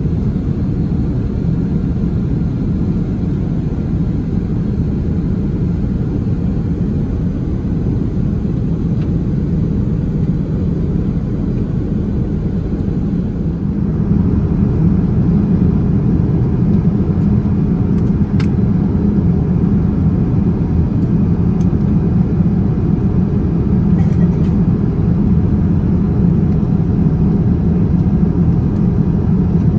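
Steady cabin noise of a Boeing 787-10 airliner in flight: the low rumble of its GEnx turbofans and the airflow, heard from a window seat beside the wing. It grows slightly louder about halfway through.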